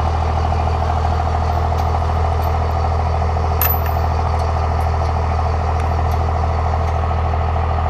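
A vehicle engine idling steadily, with a couple of faint clicks.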